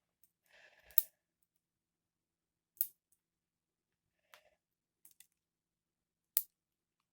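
Lego butterfly knife being flipped, its plastic handles clacking against each other and the blade in a few separate sharp clicks, the loudest a little before the end, with faint handling rustle between.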